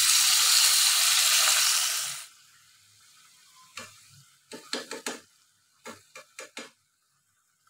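Water poured into a hot, oiled frying pan of fried tofu and beef tendon sizzles loudly, then cuts off suddenly about two seconds in. Later a metal spoon taps lightly in two quick runs of four or five clicks as seasonings go into the pan.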